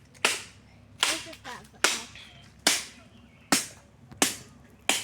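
Chopping blows into a wooden log, seven sharp strikes in an even rhythm of a little more than one a second.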